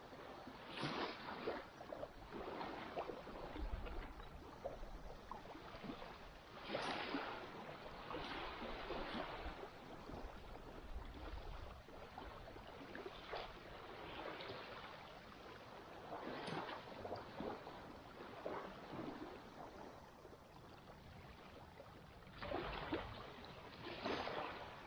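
Small waves lapping in soft, faint washes that swell and fade every couple of seconds.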